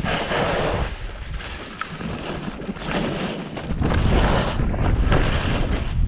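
Skis hissing and scraping on packed, groomed snow, swelling with each carved turn, over wind rushing across an action camera's microphone at skiing speed. The low wind rumble grows louder about two-thirds of the way through.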